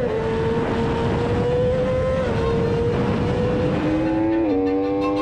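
Sportbike engine at high revs on track, heard from an onboard camera. Its pitch climbs slowly under acceleration and drops sharply at upshifts about two and four and a half seconds in, over wind rush.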